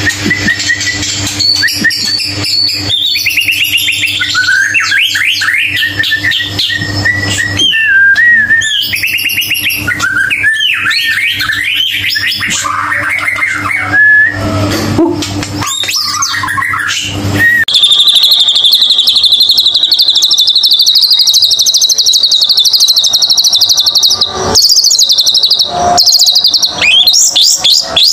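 White-rumped shama song: a run of varied clear whistles gliding up and down over a low steady hum. About two-thirds of the way in it changes abruptly to a long, continuous, high rapid trill.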